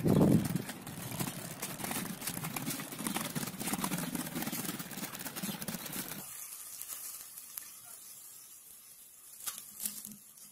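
Small plastic wheels of a child's three-wheeled kick scooter rolling over paving stones: a rattling rumble with many small clicks and a bump at the start. It stops abruptly about six seconds in, leaving quieter open-air background.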